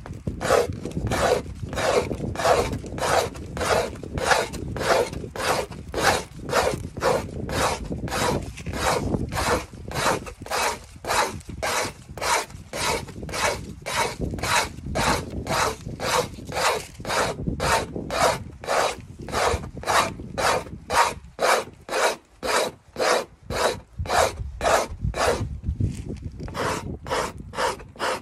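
Hand scraper scraping a frozen moose calf hide laced on a frame, in quick, even strokes about two a second. This is the sound a hide should make when frost scraping is working.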